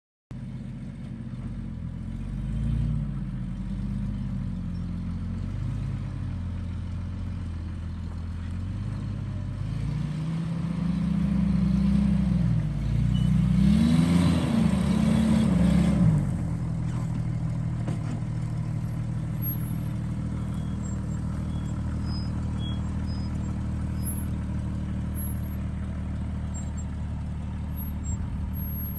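A motor vehicle's engine running, its pitch rising and falling as it revs several times, loudest over a few seconds past the middle, then settling into a steady run.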